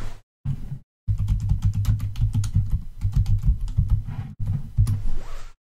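Computer keyboard typing: a quick run of keystrokes entering a DiskPart command.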